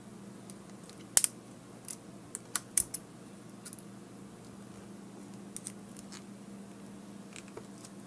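Sharp metal clicks and snaps as small cutters cut and pry apart the thin sheet-metal shell of a USB 3.0 Type-A plug. A quick cluster of clicks comes between about one and three seconds in, the first the loudest, then a few fainter ones later.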